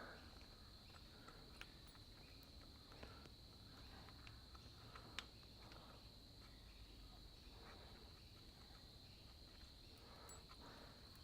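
Near silence: a faint steady high-pitched whine throughout, with a few faint clicks and one sharper click about five seconds in.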